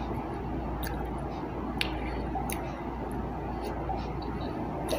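Close-miked chewing of fruit with a few short mouth clicks, over a steady low background hum.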